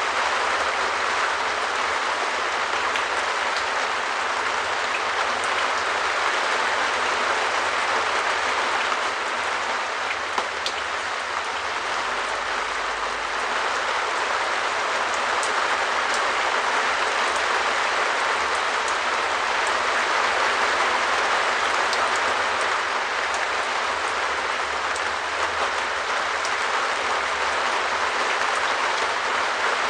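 Rain falling steadily on a shed roof: a dense, even patter with occasional sharper drop ticks.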